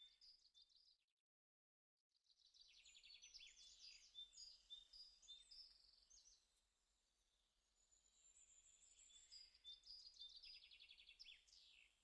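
Faint birdsong: high-pitched chirps and rapid trills, broken by a moment of complete silence about a second in.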